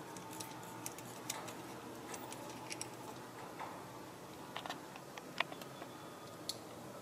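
Faint, scattered light clicks and ticks as the camshaft position sensor's metal fixing bolt is drawn out and handled by hand, with one slightly sharper click about five seconds in.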